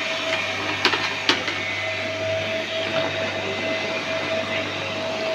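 Portable electric pressure washer running, a steady motor hum with the hiss of the water spray. Two sharp knocks about a second in.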